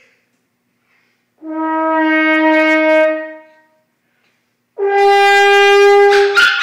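French horn playing two long held notes, the second higher than the first. The second note ends in a short noisy burst.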